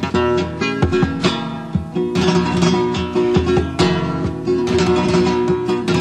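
Spanish acoustic guitar playing an instrumental break in a comic song, with repeated strummed chords over plucked notes.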